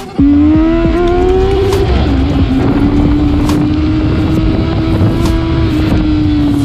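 Honda CBR919RR FireBlade's inline-four engine running loud at high revs, its pitch climbing for about two seconds, dipping briefly, then holding steady and easing down slightly near the end.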